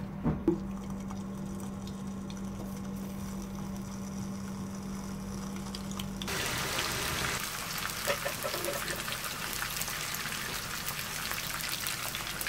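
A few light knocks as chicken franks are laid into a nonstick frying pan, over a steady low hum. About halfway in, the hot oil starts sizzling around the franks as they fry.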